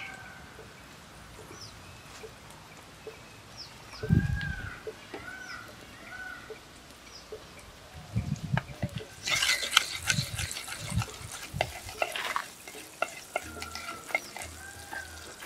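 A wooden spoon knocking and scraping in a clay pot of hot oil over a wood fire, with a short burst of sizzling and crackling about two-thirds of the way in. There is a dull thump about four seconds in, and birds call in the background.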